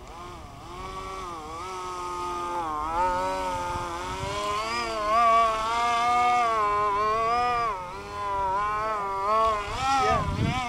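Electric motor and propeller of a small foam radio-controlled aerobatic plane (H-King Nino EPP), buzzing with a pitch that rises and falls, loudest about halfway through. A brief low rumble near the end.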